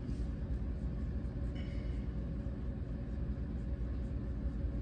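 Steady low rumbling hum of a household furnace running.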